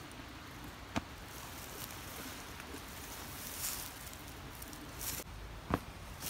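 Quiet outdoor background with a sharp click about a second in, another near the end, and two brief soft hissy rustles in between.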